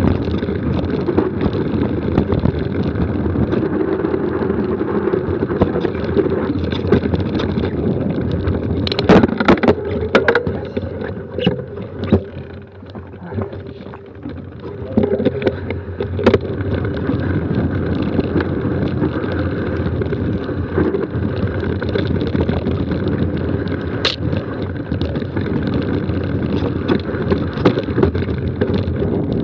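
Mountain bike descending a rocky dirt trail: steady wind rush on the microphone and tyre and frame rattle over loose stones, with sharp knocks as the wheels hit rocks. The noise drops away for a few seconds midway as the bike slows, then builds again.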